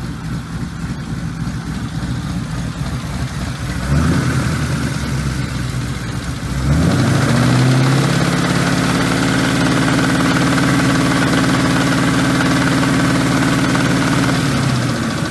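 Ford 4.6L two-valve V8 idling, blipped briefly about four seconds in, then revved and held at a raised speed for about eight seconds before dropping back. A loud smacking tick-tick-tick rides on the engine note, which the owner is pretty sure is rod knock.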